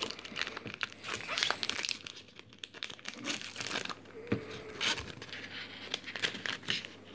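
Foil wrapper of a Pokémon card booster pack crinkling and tearing in the hands as the pack is opened: irregular crackly rustling.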